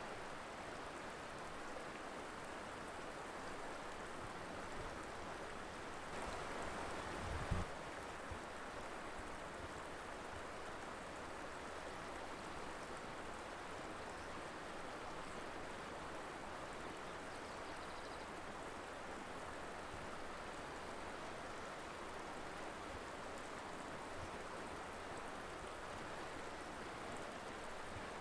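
Colorado River flowing, a steady rush of water. About six seconds in, the rush swells briefly and ends in a single low thump.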